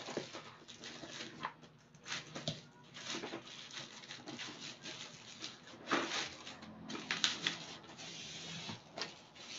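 Plastic packaging being unwrapped by hand: a plastic mailer pouch and bubble wrap crinkling and tearing in an irregular run of crackles and rustles.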